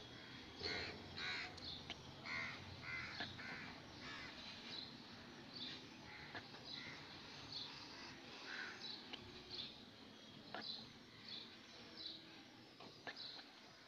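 Faint bird calls: a series of short, separate calls, one every half second to a second.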